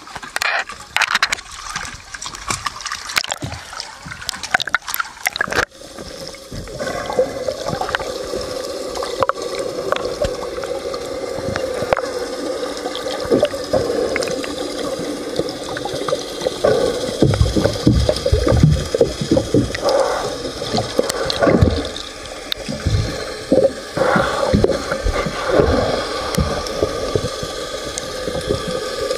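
Water sloshing and gurgling around a waterproof camera, which changes sharply about six seconds in as the camera goes underwater. From then on it is a steady, muffled underwater wash with gurgling and scattered knocks and rubs close to the camera.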